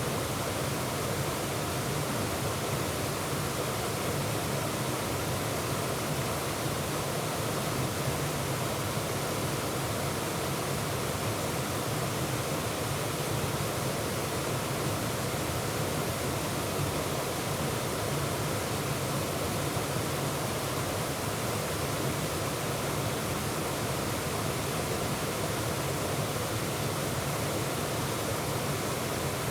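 Waterfall cascading over rocks with a steady, unbroken rush of water.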